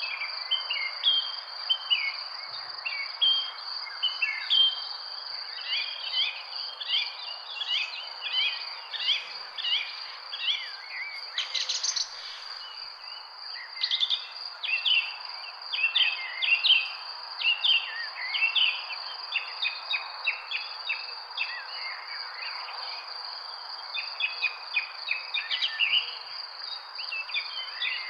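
Many birds chirping and twittering in quick, overlapping short calls, over a steady high insect drone and a constant background hush.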